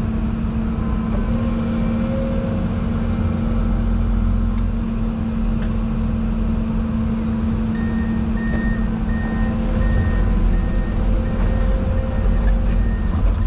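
Excavator diesel engine running steadily under load, heard from inside the cab. In the second half a high-pitched beep repeats about one and a half times a second, typical of the machine's travel alarm while it tracks.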